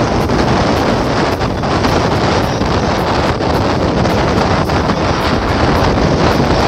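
Steady wind buffeting the microphone on the bow of a moving speedboat, mixed with the rush of the boat and the sea.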